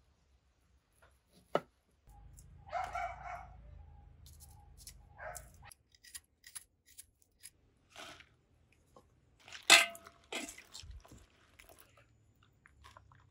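Kitchen knife cutting raw jackfruit on a wooden chopping board and scraping the skin off a fresh root: scattered crisp cuts, clicks and taps, the sharpest knock about ten seconds in. A short harsh sound cuts in about three seconds in.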